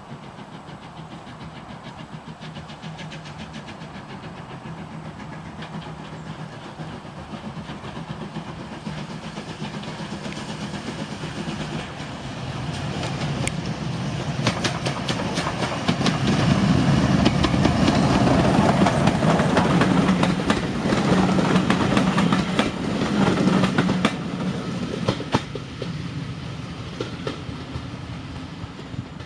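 Steam locomotive hauling passenger carriages approaches and passes close by, its wheels clicking over the rail joints. It is loudest about two-thirds of the way through, then fades as the train draws away.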